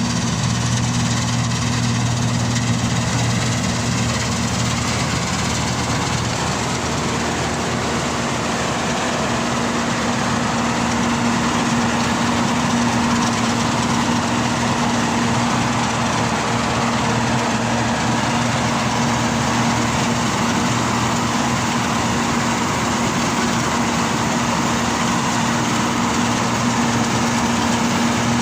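Engine of wheat-harvesting machinery running at a steady speed, a constant low hum with an even mechanical clatter over it.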